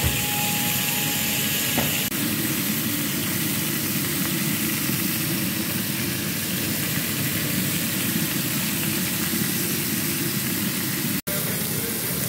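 Beef steaks sizzling steadily in hot oil in a ridged grill pan, over a steady low rumble.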